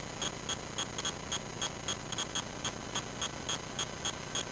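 Steady fast ticking, about four to five clicks a second, over a faint low hum in the cockpit audio of a Piper Cherokee sitting on the runway.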